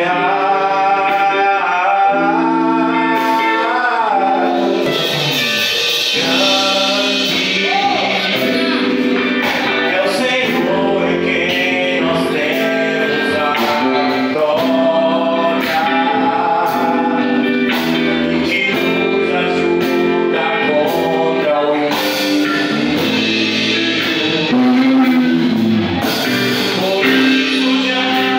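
A man singing a Portuguese gospel worship song into a handheld microphone, his voice sliding between held notes over steady sustained instrumental chords.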